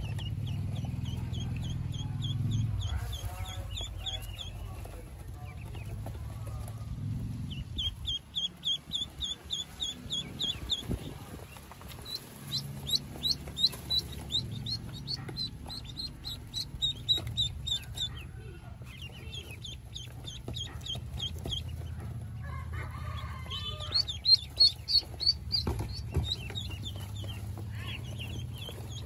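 Ducklings peeping: runs of short, high, even cheeps at about four a second, in bursts with short pauses between, over a low steady rumble.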